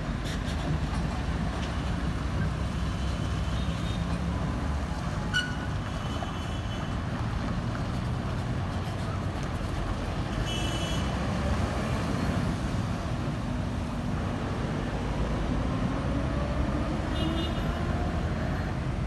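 Heavy diesel engine running steadily, with a few short high beeps and its pitch slowly rising over the last few seconds.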